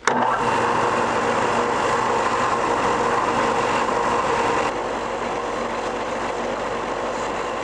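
Bench belt sander running, with a wooden lure blank held against the moving belt: a steady motor whine over a grinding hiss of sanding wood. The level drops a little about five seconds in.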